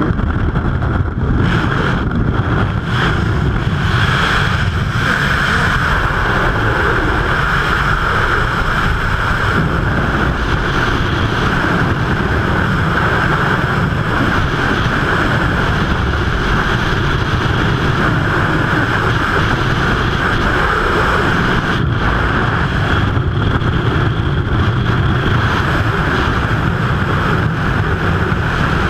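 Wind rushing over a helmet camera's microphone in skydiving freefall, loud and steady.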